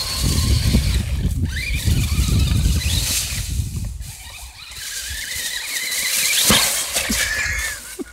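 Radio-controlled monster truck's motor whining, rising in pitch again and again as it speeds up and spins donuts in dry leaves, over a low rumble. A sharp knock about six and a half seconds in.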